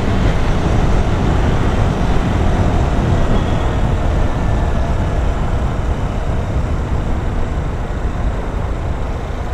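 Honda CG 160 Titan motorcycle's single-cylinder engine running as the bike rides along, under a steady rush of road and wind noise.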